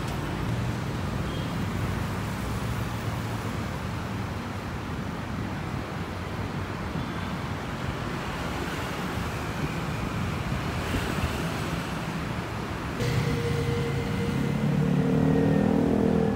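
Traffic on a busy city road: a steady hum of passing cars and buses. About three seconds before the end a held tone with other pitched sounds comes in over it.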